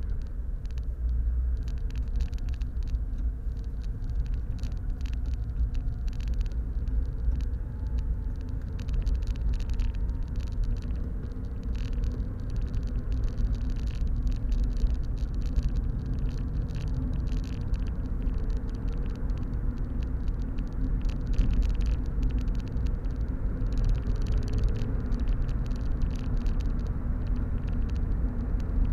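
Mazda MX-5 NB 1.8's four-cylinder engine and road noise heard from inside the cabin while driving. It is a steady low rumble, with the engine note drifting up and down a little.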